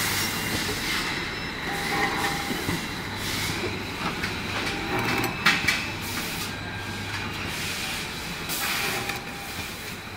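Automatic circular-blade PCB depaneling machine running as it cuts a circuit-board panel and feeds the boards out on its conveyor: a steady mechanical hum with a hiss over it, and one sharp click about five and a half seconds in.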